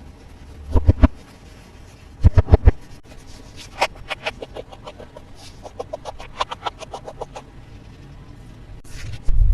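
Toys and their packaging being handled for an unboxing: a couple of clusters of loud knocks about one and two and a half seconds in, then a run of light clicks and taps.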